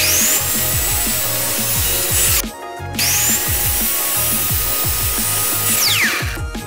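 Power tool cutting wood, run twice. Each run starts with a quickly rising whine and then holds a steady high pitch with cutting noise. The first stops about two and a half seconds in. The second starts half a second later and ends in a falling whine as the motor winds down.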